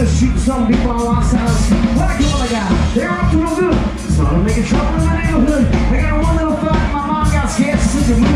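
Live rock band playing: electric bass, drum kit and electric guitar, with a man's lead vocal into a microphone over the PA.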